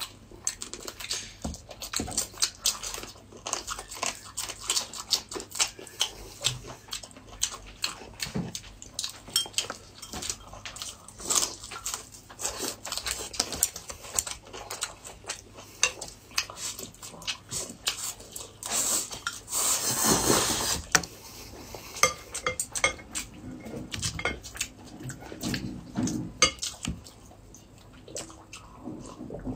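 Close-miked eating sounds: chopsticks clicking against glass and ceramic bowls and dishes, with chewing, in a dense run of short clicks. About two-thirds of the way through there is a longer, louder stretch of noise lasting a couple of seconds.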